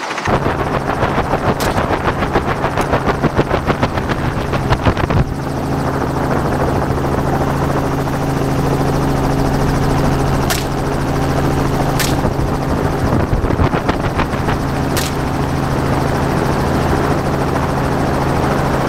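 Helicopter in flight: a steady drone of engine and rotor, with a fast beat over the first five seconds. Several sharp cracks of rifle shots fired from the open door cut through it, three of them in the second half a second or few apart.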